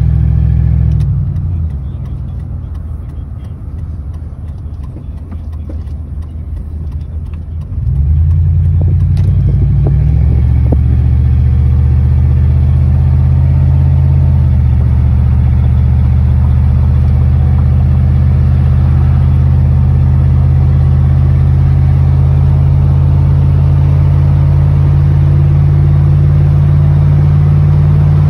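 Ford pickup's engine and exhaust rumble, heard from inside the cab. The rumble falls away about a second in, comes back strongly about eight seconds in and rises in pitch as the truck accelerates, steps in pitch near fourteen seconds, then runs steadily.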